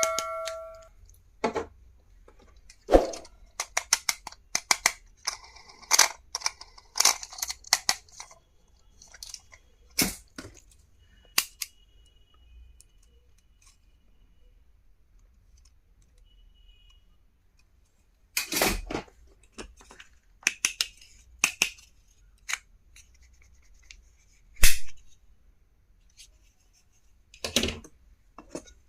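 Stationery items being unboxed and handled: irregular sharp clicks, taps and short rustles, with a quiet stretch in the middle.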